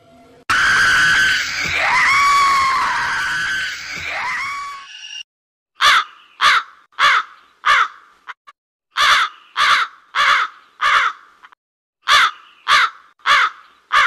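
A high, wavering scream for about five seconds, then a crow cawing in three runs of four short caws.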